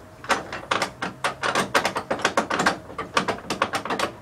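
Handling noise close to the microphone: a rapid, irregular run of scratches and clicks, several a second, as clothing rubs and knocks against the phone.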